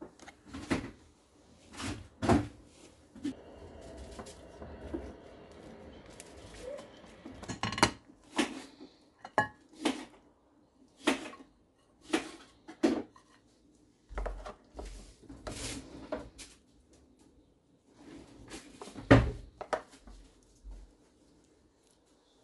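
Kitchen clatter during cooking: cupboard doors, dishes and utensils being handled and set down, a string of irregular knocks and clicks, the loudest a heavy clunk about 19 seconds in.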